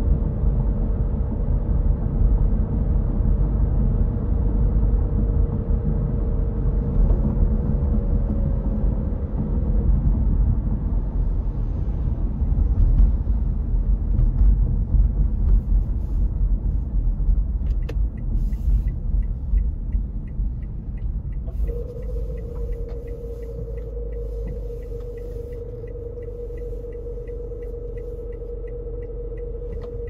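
Car's engine and tyre rumble heard from inside the cabin, with a steady hum, easing off after about twenty seconds as the car slows to a stop. From about eighteen seconds in, a quick, regular ticking runs alongside it.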